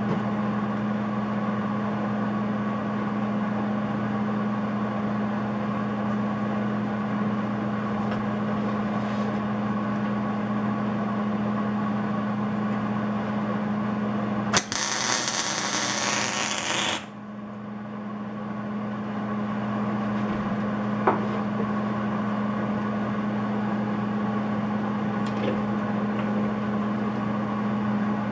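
A steady electrical hum throughout. About fourteen and a half seconds in, a MIG welder's arc crackles and sizzles for about two seconds and cuts off suddenly: a short weld laid without shielding gas, because the gas tanks were left off, which leaves a poor weld.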